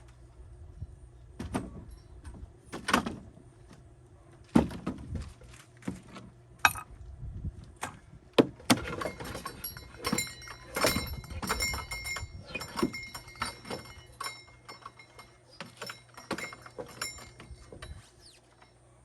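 A run of irregular knocks, clicks and clatters, thickest about halfway through with some ringing, metallic-sounding rattles, over a steady low hum.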